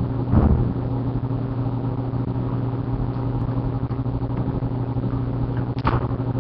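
A steady low hum, with a brief soft knock about half a second in and another near the end.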